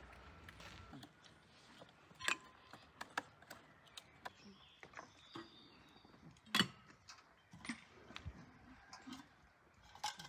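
Scattered metallic clinks and knocks as the parts of a metal samovar are handled, the loudest about two seconds in and again near the middle, with birds chirping faintly.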